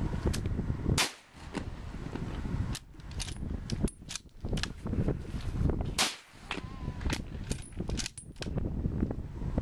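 Scoped rifle being fired repeatedly: a run of sharp shot cracks. The loudest come about a second in and about six seconds in, with quicker, fainter cracks between them.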